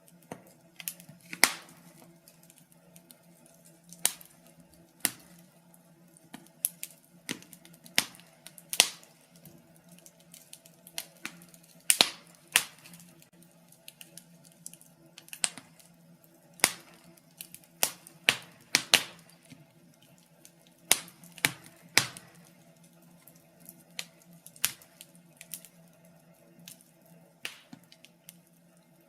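Wood fire in a fireplace crackling: irregular sharp pops and snaps, some close together, over a faint steady low hum.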